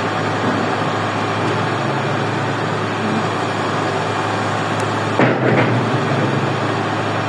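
XCMG XE370 excavator's diesel engine running steadily, with a brief louder burst of noise about five seconds in.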